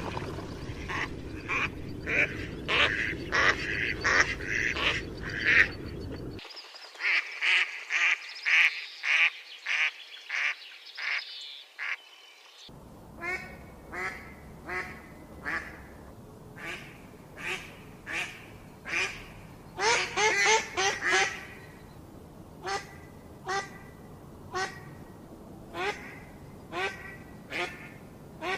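Ducks quacking: many short, repeated calls, packed close together at first, then spaced about one a second, with a quick flurry of calls about two-thirds of the way through.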